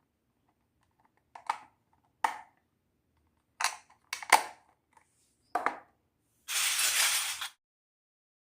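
Small hard toy kitchen pieces set down and knocked together, six short clinks spread over a few seconds, followed by about a second of steady hiss.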